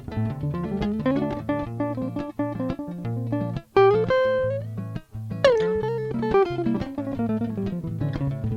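Höfner Wandergitarre with a single-coil pickup, played fingerstyle: picked melody notes over low bass notes, with a note sliding up about four seconds in and a loud struck note about five and a half seconds in that glides down in pitch.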